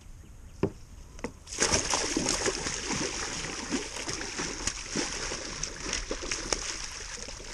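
A big hooked bowfin thrashing at the surface beside a kayak: heavy, continuous splashing starts suddenly about a second and a half in.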